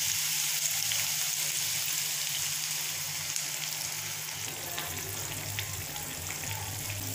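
Carrots, potatoes and peppers sautéing in curry oil in a frying pan, sizzling steadily. The sizzle slowly quietens over the first few seconds as water goes into the pan.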